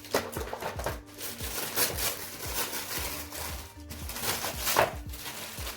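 Wrapping paper rustling and tearing as a present is unwrapped, loudest in a few sharp rips, over background music with a steady beat.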